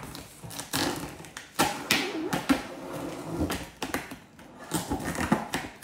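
Boxes and packaging being handled during an unboxing: a run of irregular taps, clicks and knocks with some rustling in between.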